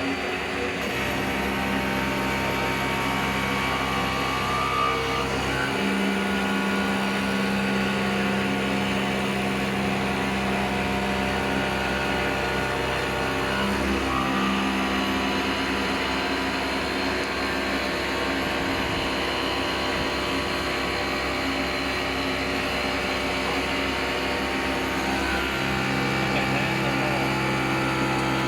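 Stone CNC router running: the spindle and axis motors make a steady machine hum with several tones, which change about 6, 14 and 26 seconds in.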